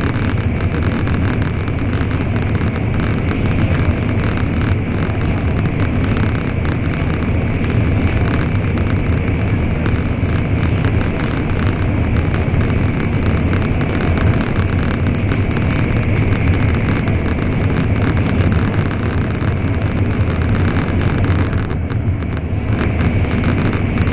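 Steady interior running noise inside an N700 series Shinkansen at speed: a continuous low rumble under an even rushing hiss.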